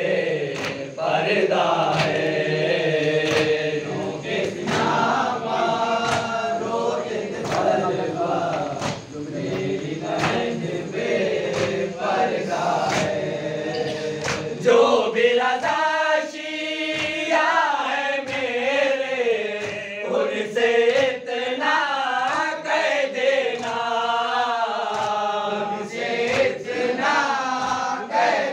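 Men's voices chanting a noha, the Shia lament, in unison as a group, with sliding, wailing melodic lines that rise and fall. Sharp hits come at irregular moments throughout.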